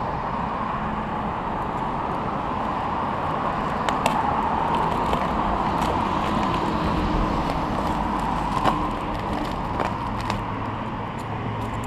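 Steady road traffic noise from passing cars, with a few brief clicks.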